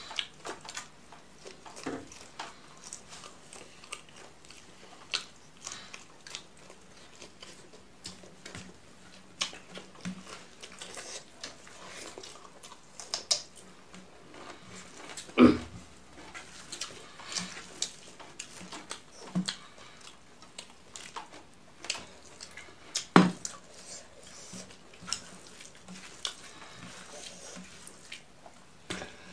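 Close-miked sounds of eating rice and dal by hand: fingers squishing and mixing rice on a plate, wet chewing and lip smacking as a stream of small clicks. Two louder thumps stand out, about halfway through and again about three-quarters through.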